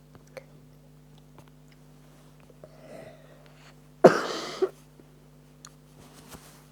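One person coughing once, sharply, about four seconds in, from a bad cough. Faint clicks and a low steady hum sit underneath.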